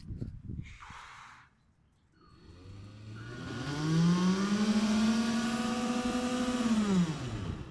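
Electric propeller motor of a handmade li-po-powered bait boat run up out of water. Its whine rises in pitch over about a second and a half, holds steady for about three seconds, then winds down quickly near the end.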